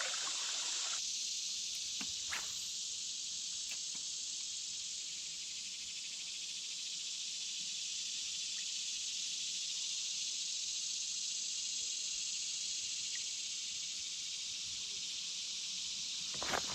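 Steady high-pitched insect chorus hissing without a break, with a few faint clicks of handling or tackle.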